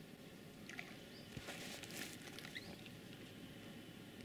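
Quiet riverside ambience: a few faint, short, high chirps, and a brief rustle about one and a half seconds in.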